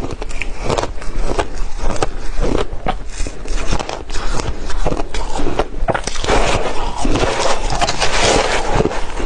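Crushed ice crunching between the teeth as it is chewed, a quick run of crisp crunches. About six seconds in, a denser scraping crackle takes over as a metal spoon digs into the bowl of crushed ice.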